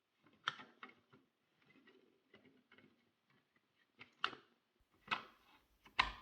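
Plastic clicks and knocks as a motorcycle dashboard unit is handled and pressed into a new plastic case: a handful of sharp taps, the loudest about half a second in and near the end, with faint rustling in between.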